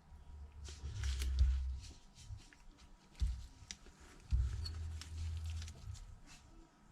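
Small ticks and light rustling of thin adhesive tape being handled and pressed onto a phone frame, with two stretches of low rumbling handling noise, the loudest sounds here.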